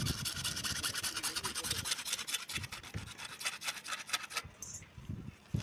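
Hacksaw blade sawing a PVC water pipe with quick, even back-and-forth rasping strokes that stop about four and a half seconds in. A low thump follows near the end.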